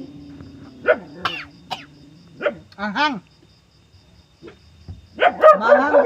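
Dogs barking: several short, separate barks in the first few seconds, then a louder flurry of barking near the end.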